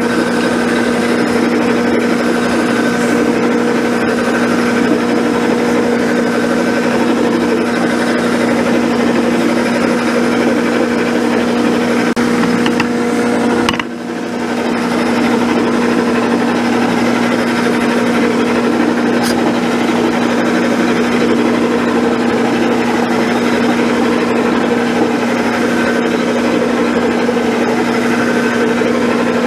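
Abene milling machine running with its end mill taking a light hand-fed pass, about 10 thou, across a straight-edge casting: a steady motor and spindle hum over the noise of the cut. The sound dips briefly about fourteen seconds in, then carries on the same.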